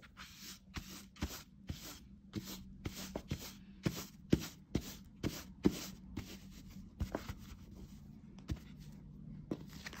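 Paper towel wiped in quick, repeated rubbing strokes over a robot vacuum's fabric mop pads, about two swishes a second, fewer and further apart near the end.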